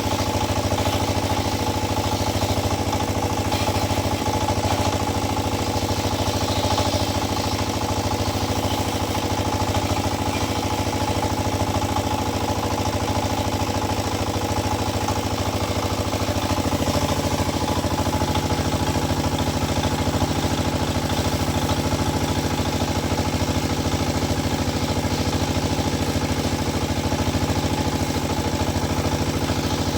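Diesel tractor engine idling steadily, its note shifting slightly about halfway through.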